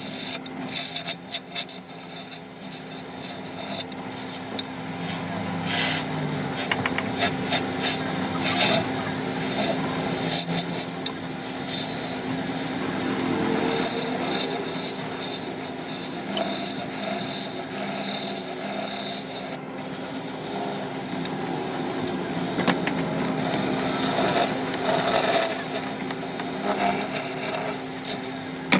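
Wood being worked by abrasion: continuous scraping and rubbing with scattered clicks, over a steady low hum.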